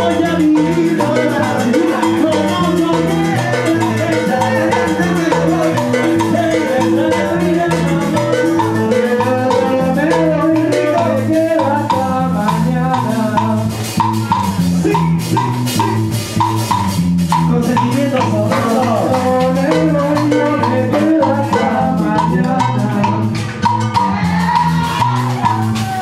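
Salsa music from a live band, with percussion and a repeating bass line.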